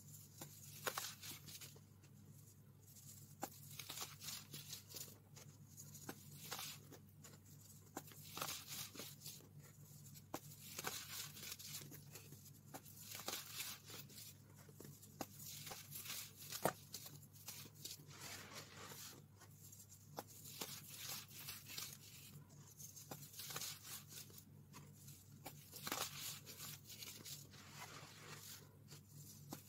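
Hands squeezing, crumbling and raking through loose baking soda powder, making soft crunchy, squeaky scrunches in short repeated bursts, with an occasional sharper click.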